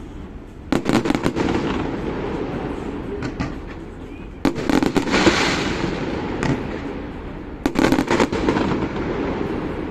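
Fireworks display: three volleys of shell bursts, about a second in, around the middle and near the end, each followed by crackling.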